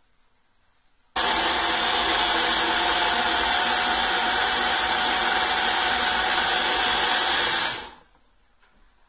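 Magic Bullet personal blender running, blending quick oats and water in its cup. The motor starts abruptly about a second in, runs at a steady pitch for about six and a half seconds, then winds down quickly.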